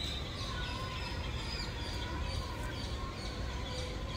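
Birds chirping: many short, high chirps in quick succession, with a thinner, longer note held lower down, over a low rumble.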